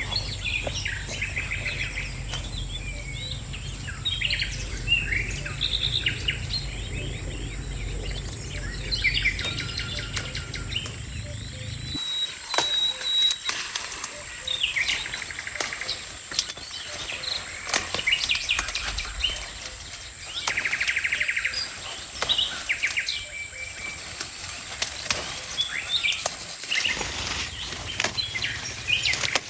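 Birds chirping and calling in many short, overlapping chirps, with scattered clicks and a steady high tone behind them. A low rumble underneath stops abruptly about twelve seconds in.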